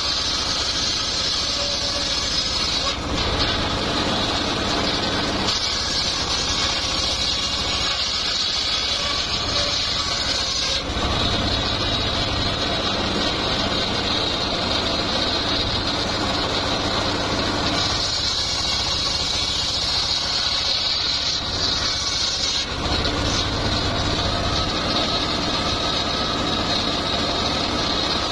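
Home-built bench circular saw ripping a teak log, its engine-driven blade running without a break. A high cutting whine grows stronger and fades again in long stretches of several seconds as the log is fed through.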